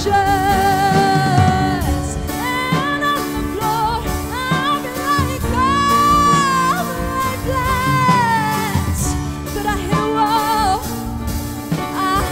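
Live band music: a singer holds long, wavering notes over a drum kit and backing instruments.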